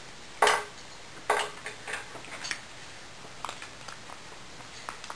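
Clinks and clicks of a small ceramic food bowl and its food as a puppy and a ferret eat from it. Two sharp clinks come about half a second and a second and a half in, followed by a scatter of lighter clicks.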